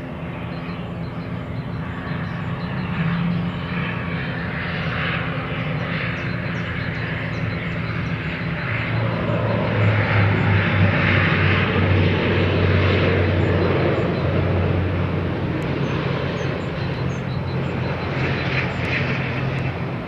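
ATR 72-600 turboprop airliner's twin Pratt & Whitney PW127M engines and propellers during the landing rollout. A steady propeller drone with a low hum swells to its loudest about halfway through as the aircraft rolls past, then eases off.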